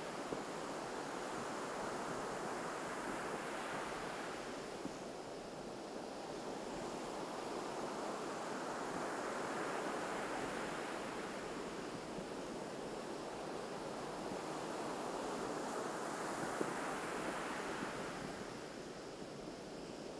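Ocean surf breaking on a beach: a steady wash of waves that swells and fades three times, the swells about six or seven seconds apart.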